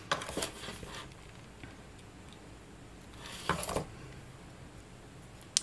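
Faint clicks and taps of handling a mini hot glue gun and a small wooden cutout while gluing: a few light clicks at the start, a short cluster about three and a half seconds in, and one sharp click near the end.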